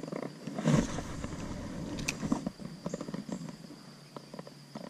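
Spinning rod cast and spinning reel cranked to bring in a spinner lure: a loud whoosh under a second in, a sharp click about two seconds in, then the reel turning with light irregular ticking that fades near the end.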